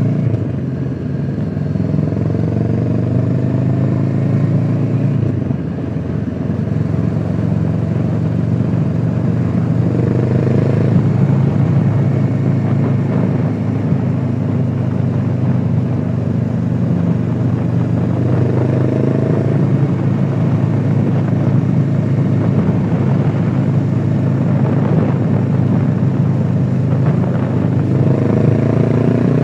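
Honda CBR500R's parallel-twin engine running on the move, its revs rising and falling several times, heard muffled through a microphone in the rider's pocket.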